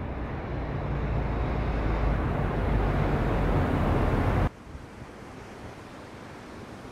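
Wind rumbling on the microphone together with sea surf, growing louder, then cut off abruptly about four and a half seconds in to a quieter, steady wash of surf and wind.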